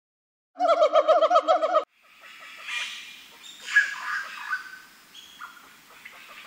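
A monkey's fast chattering call of about ten short, pitched notes, lasting just over a second. Then birds chirp and whistle in a varied mix, with one loud chirp near the middle.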